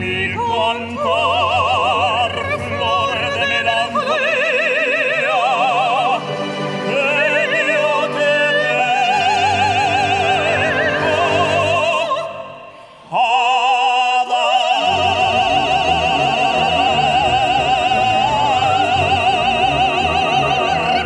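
Soprano and tenor singing an operatic duet with strong vibrato over a symphony orchestra. After a brief break about two-thirds through, the voices hold one long note.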